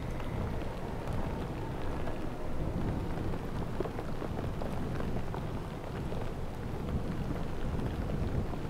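Snowstorm wind and blowing snow: a steady rushing noise with a heavy low rumble and fine crackling throughout.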